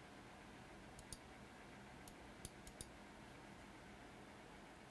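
Faint computer mouse clicks in a quiet room: two quick clicks about a second in, then four more spread between two and three seconds in.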